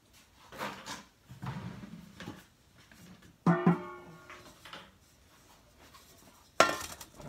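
Stainless steel bowl handled while its powder is tipped into a bucket. There are soft rustling scrapes at first, then a sharp metallic clank with a brief ring about three and a half seconds in, and a second ringing clank near the end.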